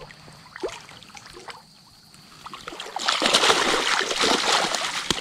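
Hooked brown trout thrashing and splashing at the surface of a shallow creek as it is drawn to the landing net. It breaks into loud, continuous splashing about three seconds in, after a fairly quiet start.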